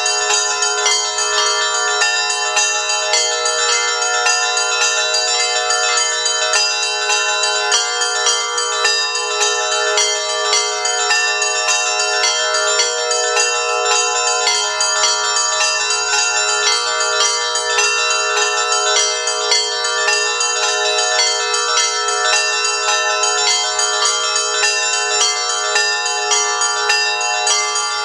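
Russian Orthodox church bells ringing in an unbroken fast peal: a set of small and middle-sized bells struck over and over in quick repeating patterns, their tones overlapping. No deep bass bell is heard.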